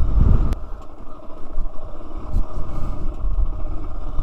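Motorcycle running with wind noise on the microphone. It is loud at first, then drops abruptly after a click about half a second in, leaving a quieter low rumble.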